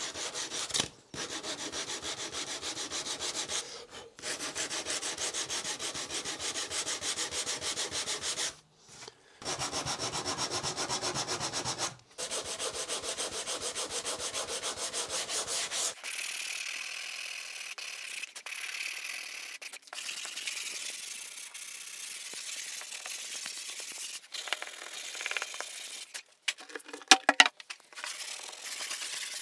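Wooden edges being hand-sanded with 80-grit paper on a sanding block to chamfer them: a dense scratching rub in stretches broken by short pauses, turning to a quieter, thinner hiss about halfway through. A few sharp knocks near the end.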